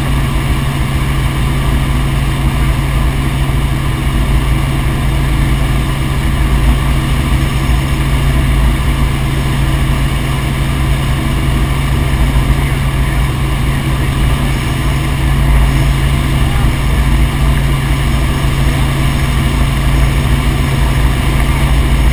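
Helicopter in flight: a steady, loud drone of engine and rotor that holds constant with no change in pitch.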